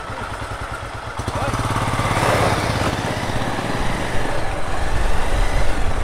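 Bajaj Pulsar's single-cylinder engine running with an even, rapid pulse as the bike is ridden slowly along a dirt track. The engine picks up about a second in and runs harder from there, with a rushing noise over it.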